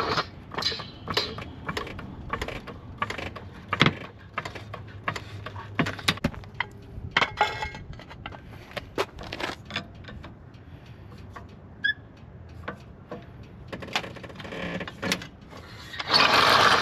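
Irregular clicks and clanks of hand tools on metal while working on a car, with a short loud rush of noise near the end.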